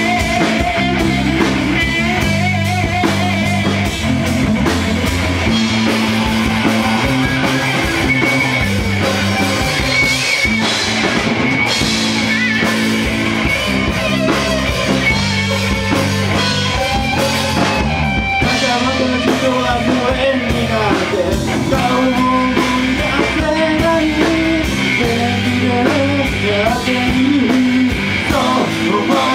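Live rock band playing loudly: semi-hollow electric guitar through a Marshall amp and electric bass, with a stretch without lyrics before the vocals come back in.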